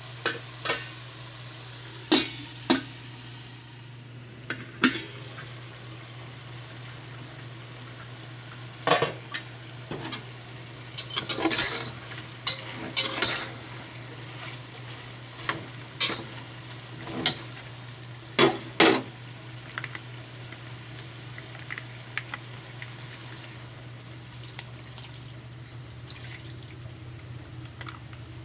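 A metal utensil stirring chicken and potato chunks in a stainless steel pot, scraping and clanking against the pot in irregular strokes. The clanks are busiest in the middle and thin out near the end, over a steady low hum.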